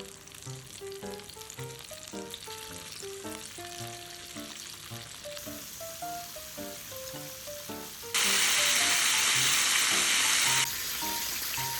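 Batter-coated chicken pieces deep-frying in hot oil: a steady sizzle that grows in steps and is loudest for a couple of seconds past the middle, then drops back, under light background music.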